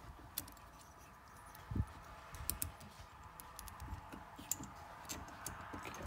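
Scattered light clicks and taps of hands fitting an ignition coil and its bolt onto a string trimmer's engine, with one duller knock about two seconds in.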